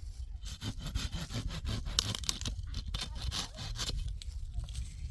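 A rapid, irregular run of scraping and crackling crunches, like hands working on wood or brush, over a steady low rumble.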